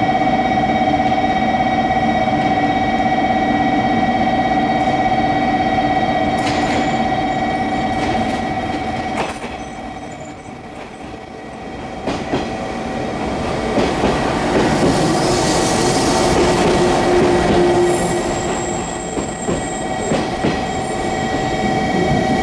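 JR 415 series electric multiple unit pulling into the platform and slowing, its wheels knocking over rail joints and squealing as it rolls past.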